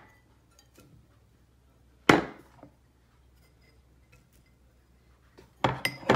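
A ceramic bowl clinking against a glass mixing bowl as chopped greens are tipped and knocked out of it: one sharp clink about two seconds in, then three or four quick clinks near the end.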